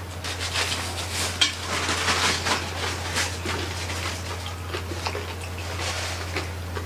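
Close-miked eating sounds: chewing, and hands pulling meat and crispy skin off a whole roast pig (lechon), with many small irregular crackles and clicks. A steady low hum runs underneath.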